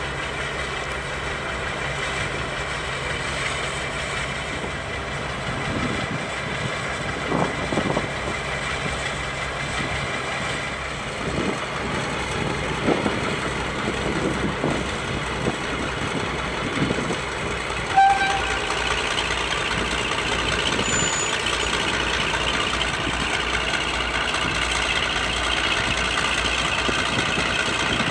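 Class 52 'Western' diesel-hydraulic locomotive D1062's twin Maybach engines running as it creeps along, with a few knocks partway through. A brief horn toot comes about two-thirds of the way in, after which the engine note grows louder.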